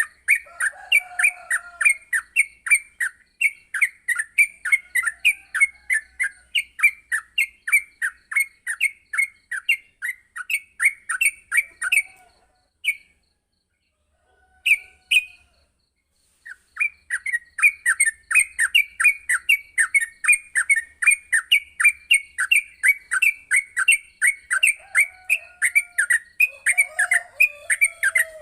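Yellow-vented bulbul (trucuk) singing a fast, continuous chattering run of down-slurred notes, about three to four a second. The run breaks off for a few seconds about halfway through, with only a couple of single notes, then starts again.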